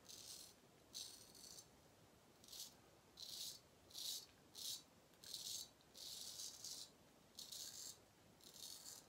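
Straight razor scraping stubble through lather under the chin and on the neck: about ten short, faint strokes, roughly one a second.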